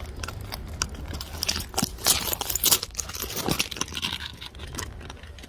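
Handling noise: a run of clicks, rustles and scrapes, loudest about two to three seconds in, over a steady low rumble.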